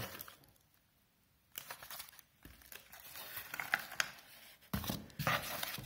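Cardboard box and small paper packets being handled: rustling and crinkling of packaging with scattered light clicks, after about a second of near silence at the start.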